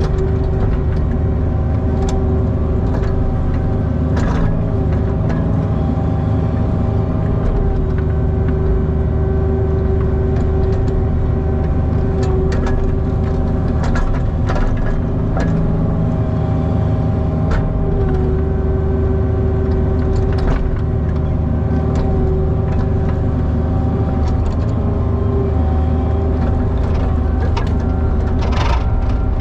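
Cat 304 mini excavator's diesel engine running steadily with a hydraulic whine that drops out and comes back as the controls are worked. Scattered sharp knocks and clicks come through over it.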